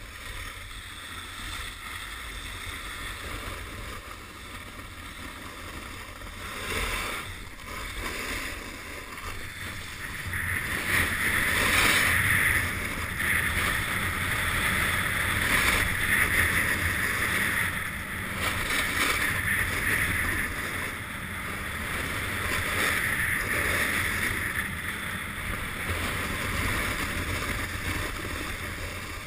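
Snowboard sliding and scraping over hard-packed snow, getting louder from about ten seconds in as the rider picks up speed, with wind rushing over the helmet camera.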